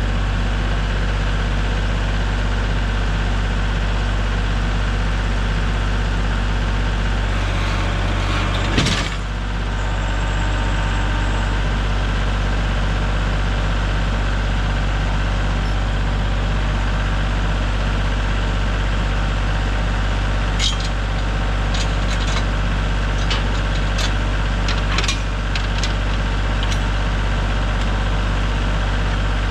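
Engine running at a steady speed, with a sharp knock about nine seconds in and a few clicks and knocks later on.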